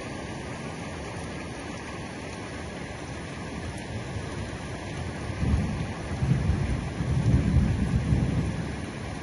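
Heavy rain falling steadily, with a low rumble of thunder swelling about halfway through and dying away near the end.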